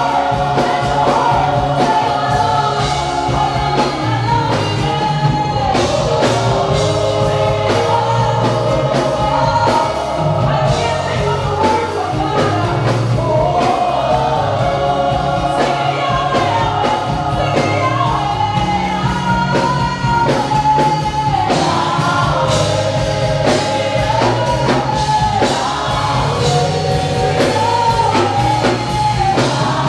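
Live gospel worship song: a woman leads the singing with a group of backing singers harmonising, over a band with bass and drums keeping a steady beat.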